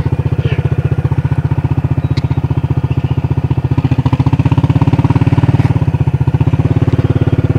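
ATV engine idling steadily with an even pulsing beat.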